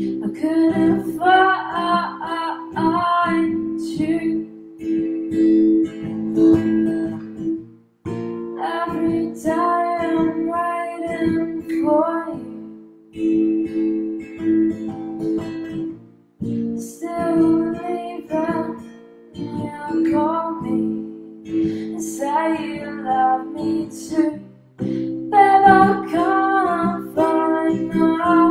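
A woman singing to her own strummed acoustic guitar, in sung phrases of a few seconds with the guitar ringing on alone in the short gaps between them.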